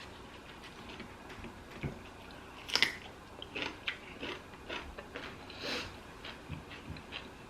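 Close-miked eating: one crisp bite about three seconds in, then chewing with a run of small wet, smacking clicks.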